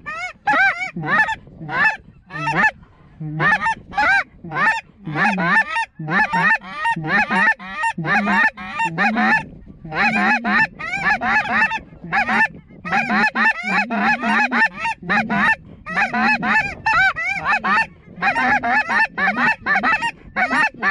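Goose honks and clucks, many short calls in quick strings broken by brief pauses, several overlapping, loud and close.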